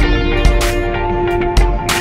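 Background music: guitar over a steady beat of about two drum hits a second.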